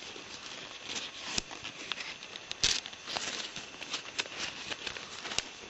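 Sheet of paper rustling and crackling as it is folded by hand and its flaps tucked in, with irregular small crackles and a sharper crackle about two and a half seconds in.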